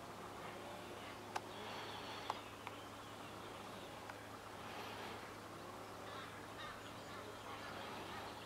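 Faint open-air ambience with a steady low hum and a few light clicks.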